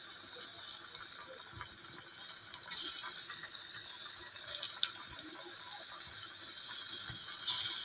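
Jackfruit fritters deep-frying in hot oil in an iron karahi: a steady high sizzling hiss with faint pops, growing louder about three seconds in.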